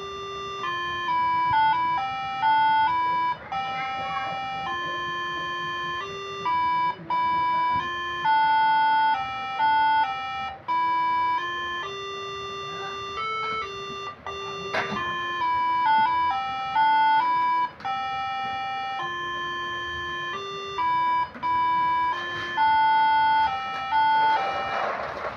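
Moreno MS7 musical air-horn module playing a preset tune on a multi-trumpet bus air horn (basuri): held horn notes that step up and down in pitch, two tones sounding together. A hiss of noise rises near the end.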